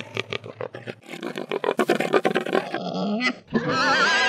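Wild hogs grunting in quick succession, then a long, loud, wavering squeal starting about three and a half seconds in.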